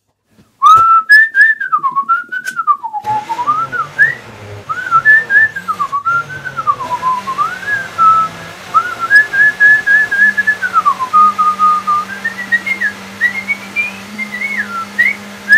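Someone whistling a wandering tune, loud and clear. About three seconds in, a countertop blender starts up and runs steadily underneath, blending a fruit-and-kale smoothie.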